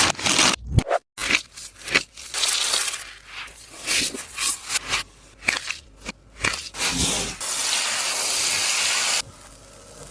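Crinkling, crunching and scraping of a tape-wrapped taba squishy being squeezed and handled, in a quick series of short bursts. Near the end a steady hiss runs for a couple of seconds and cuts off suddenly.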